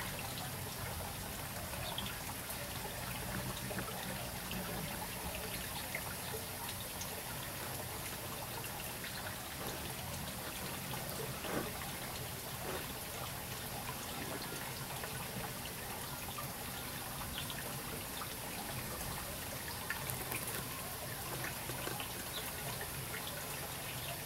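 Steady trickling of water, with faint scattered ticks.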